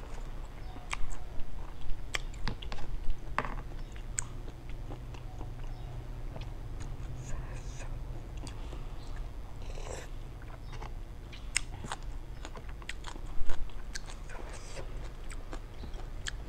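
Close-up chewing of lime-dressed, half-cooked shrimp: wet smacking and clicking mouth sounds at irregular intervals, one louder about three-quarters of the way through, over a low steady hum.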